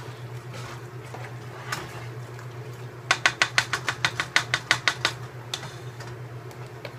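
A large spoon stirring a thick cheese mixture in a metal pot, then about two seconds of rapid knocks of the spoon against the pot, roughly six a second, starting about three seconds in.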